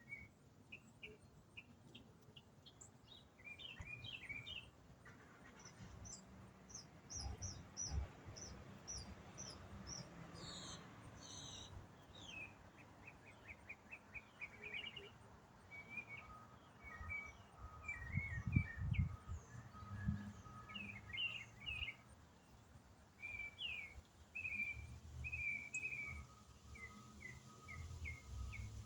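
A songbird singing one long, unbroken, complex song: quick runs of repeated chirps and trills that switch to a new pattern every few seconds, some very high and thin, others lower. Low rumbles sound underneath now and then, the strongest a little past the middle.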